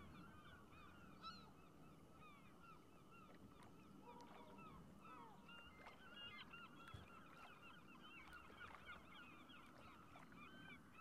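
A faint, dense chorus of many birds calling together, with short overlapping calls running on steadily throughout.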